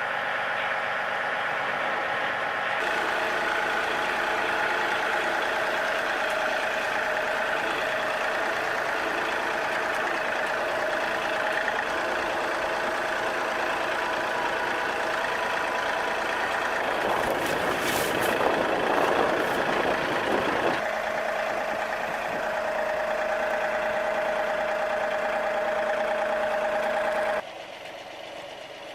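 A motor vehicle's engine running steadily, with a rougher, louder stretch lasting a few seconds past the middle; the sound drops off abruptly near the end.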